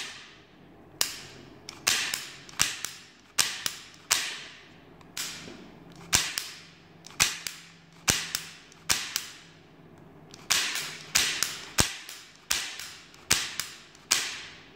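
Sharp wooden clacks, about two a second and sometimes in quick pairs, each with a short ringing tail: the plywood slide mechanism of a UGEARS Wolf-01 rubber-band pistol being worked back and forth by hand.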